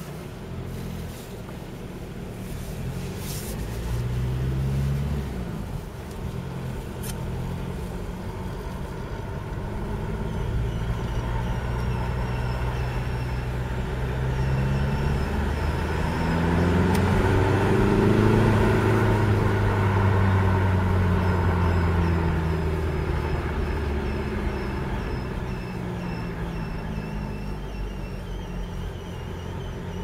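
2004 VW Passat 1.9 PD TDI diesel running on the move, heard from inside the cabin with the windows down; the engine speed rises and then falls in the middle. Over it there is a faint, high, broken squeak: exhaust gas whistling through a cracked flexible section of the exhaust next to the catalytic converter, a noise that shows only while the engine is cold.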